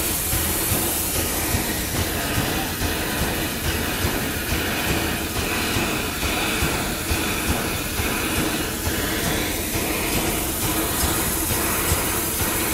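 Taiwan Railways CT273 steam locomotive moving slowly at close range, steam hissing loudly from its open cylinder drain cocks, with the knocks and clanks of the running gear on the rails.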